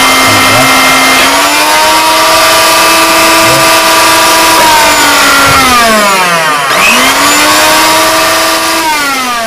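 Airlux Magic Blender's motor running with no jug fitted, as a test that the once-dead blender now turns. It is a steady hum that steps up in speed about a second in, then twice drops in pitch and winds back up as the speed and pulse buttons are switched.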